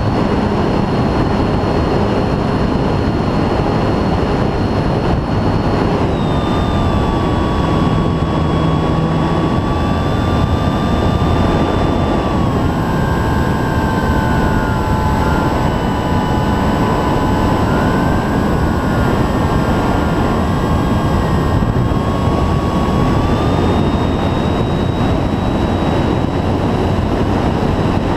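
Onboard sound of an FMS 1450mm P-51 Mustang foam RC warbird in flight: its electric brushless motor and propeller whine over a heavy rush of air on the microphone. The whine steps down in pitch about six seconds in and again around twelve seconds as the throttle is eased, then rises back a few seconds before the end.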